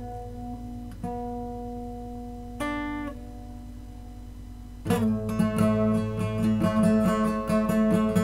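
Guitar music: a few single notes ring out and fade, then about five seconds in a louder run of quick picked and strummed notes begins.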